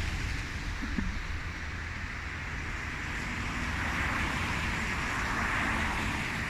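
Steady road traffic noise: a low rumble under a broad hiss that swells slightly midway.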